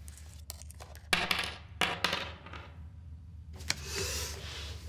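Handling noise from a small tape recorder as its batteries are fiddled with: a few scraping and rattling bursts and a sharp click a little after halfway, over a steady low hum.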